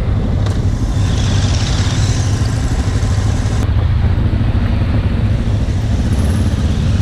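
Trail motorcycle's engine running steadily while being ridden, heard from a helmet-mounted camera, with a low hum and a rushing hiss over the microphone that eases about four seconds in.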